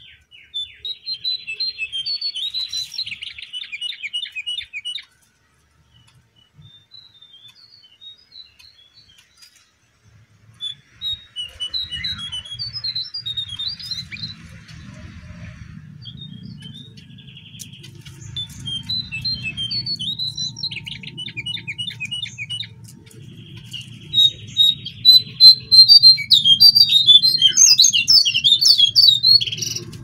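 Lesser shortwing (jongkangan) song: bursts of rapid, high twittering phrases with pauses between them, loudest and densest near the end. A low steady rumble sits underneath from about ten seconds in.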